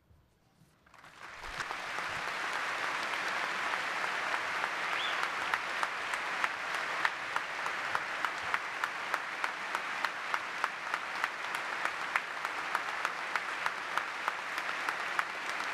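Audience applauding: it swells in about a second in and holds steady. A few nearby hands clap at an even pace, about three claps a second, standing out above the crowd.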